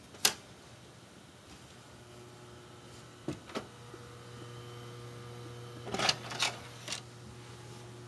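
Dell Inspiron 530 desktop computer running with a steady low hum while its opened metal case and drive bays are handled: a sharp click just after the start, two knocks about three seconds in, and a cluster of clatters and clicks around six to seven seconds in.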